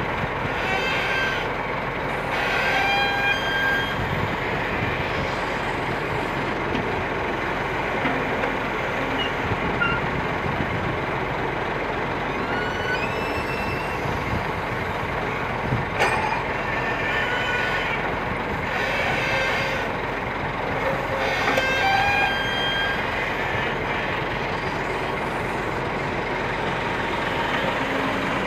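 Kobelco SK200 hydraulic excavator running and working, its diesel engine and hydraulics making a steady drone. Short high squeals come through now and then, with a single sharp knock about halfway.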